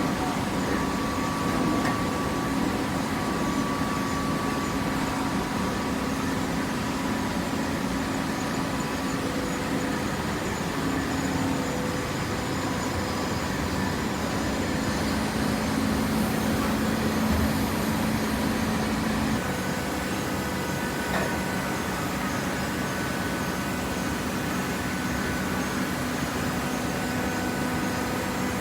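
Automatic hydraulic cardboard baler running: a steady machine hum over mechanical noise, its tone changing about two-thirds of the way through.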